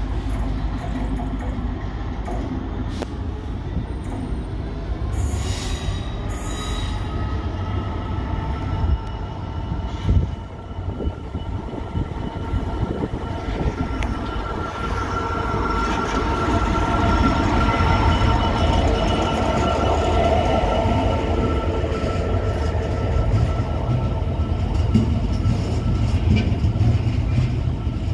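Class 66 diesel freight locomotive approaching and passing slowly with a train of box wagons, its engine running under a heavy rumble of wheels on rail. A steady high squeal from the wheels on the curve comes in about six seconds in and grows louder as the wagons pass.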